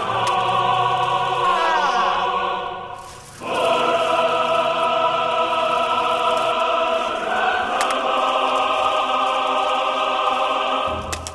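Choral soundtrack music with sustained, held chords. It fades out about three seconds in and swells back half a second later, changes chord a little past the middle, and breaks off near the end.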